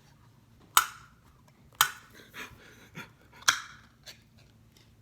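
Three loud, sharp knocks about a second apart, with two fainter ones between, each ringing briefly: kitchen utensils knocking against a bowl or can while ingredients are prepared.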